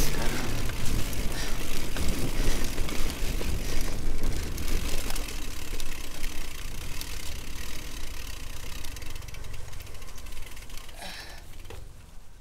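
Mountain bike ridden fast down a leaf-covered dirt trail: steady rush of tyre and riding noise with scattered rattles and clicks from the bike. It fades out gradually toward the end.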